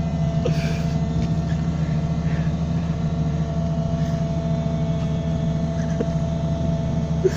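Doosan excavator's diesel engine running steadily under heavy load, with a steady whine over the low drone, as it holds a tank that is too heavy for the machine.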